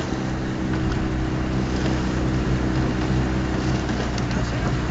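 Coaching launch's motor running steadily at cruising speed, a low even hum, with a steady hiss of wind and water over it.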